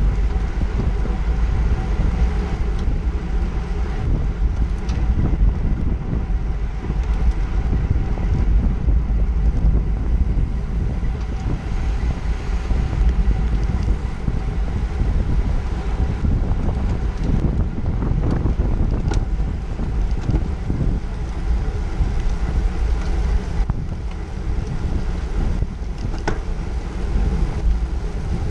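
Wind rushing over the microphone of a camera on a road bike moving at race speed in a pack, a steady low rumble with the hiss of tyres on pavement beneath it. A few brief clicks sound now and then.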